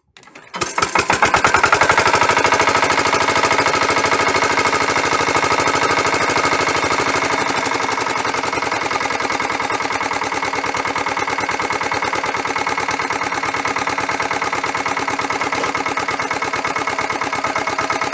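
Lombardini LDA96 single-cylinder air-cooled diesel on a walking tractor comes in about half a second in, swells over about a second, then runs steadily with a fast, even diesel pulse.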